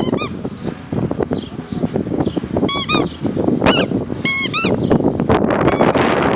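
A dog chewing a squeaky toy, which squeaks in short high-pitched bursts several times, over a steady rough rustling noise.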